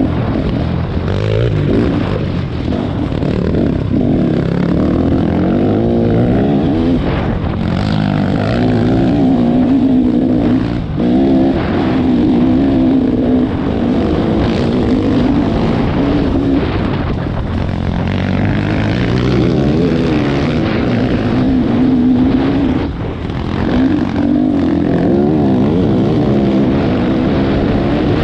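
Trail motorcycle engine running under load while being ridden off-road, its pitch rising and falling with the throttle, with two short drops in revs.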